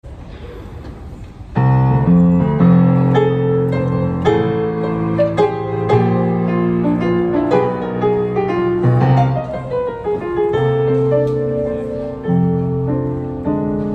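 Yamaha grand piano playing a slow, chordal hymn introduction, starting about one and a half seconds in.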